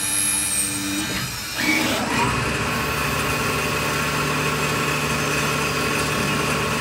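CNC lathe machining a small brass part, its drives and spindle running with a steady mechanical whine. About a second and a half in the sound changes and grows a little louder as the gang-tool slide moves in to the part.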